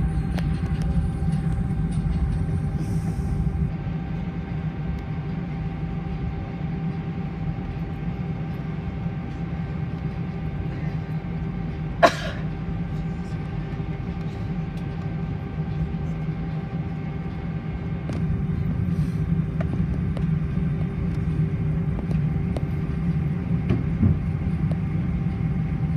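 Cabin noise of an Airbus A320 taxiing: a steady low rumble of the jet engines and airframe, with a faint steady hum. A single sharp click comes about halfway through.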